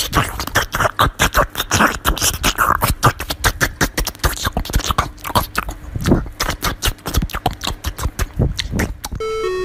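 Small white dog eating a slice of watermelon close to the microphone: rapid wet chewing and crunching, many clicks a second.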